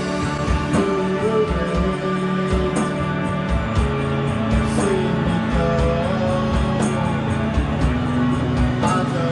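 Live band jamming: guitar-led rock music over a steady beat, with some sliding notes.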